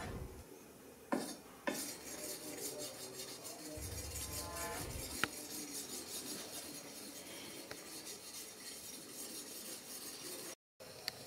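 Hardwood block charged with polishing paste rubbed along a katana's steel blade: a steady, scratchy rubbing of wood on steel, a polishing stage of hand sharpening. Two sharp clicks a little after a second in.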